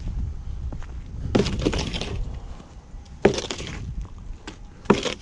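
Footsteps crunching in icy snow: three crunchy steps, roughly one every second and a half to two seconds, over a low steady rumble.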